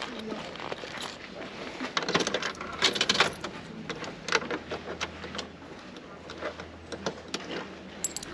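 Scattered sharp clicks and clinks of small hard objects at irregular intervals, busiest in the middle of the stretch.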